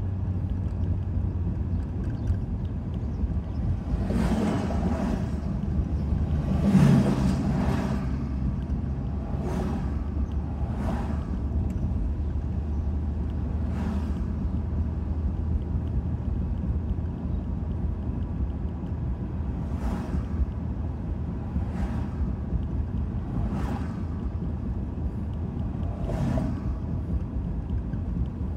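Car road noise heard inside the cabin: a steady low rumble of engine and tyres, with about nine brief noisy swells every few seconds, the loudest about seven seconds in.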